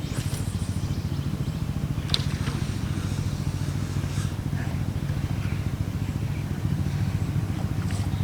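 An engine running steadily with a fast, even pulse, and a few faint clicks over it, one sharper about two seconds in.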